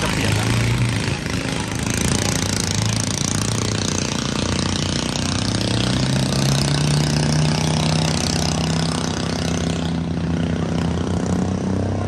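An engine runs steadily with a humming note over a broad hiss, and its pitch rises a little partway through.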